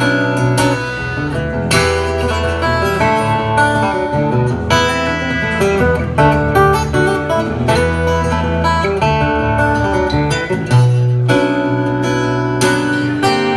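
Acoustic guitar played live, with an electric bass holding low notes underneath.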